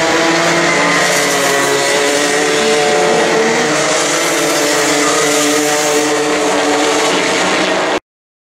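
Several two-stroke racing kart engines running at speed together, a steady blend of engine notes, cutting off abruptly near the end.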